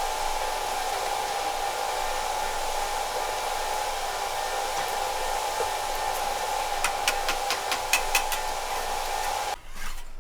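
A steady motor whir with a constant hum and hiss. Several sharp clicks or taps come near the end, then it cuts off abruptly.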